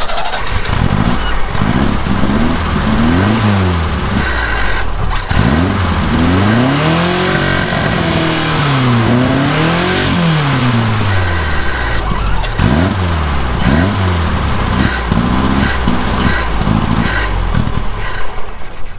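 Carbureted engine catching and running, its pitch rising and falling again and again as it revs rather than settling to a steady idle. Its idle and main jets are suspected of being partly blocked with gum.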